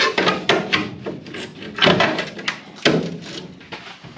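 Irregular knocks and clunks of sheet steel as the replacement trunk floor and wheel tub panel is pushed and worked into place in the car body, where it keeps catching; several sharp hits, some with a short metallic ring.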